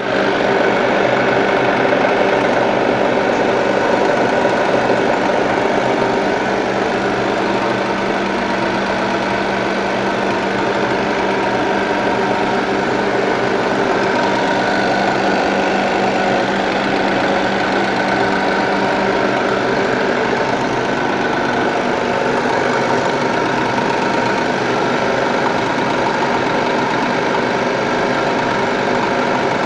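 Namkeen fryer machine running: a loud, steady mechanical hum with a low tone that fades about two-thirds of the way through.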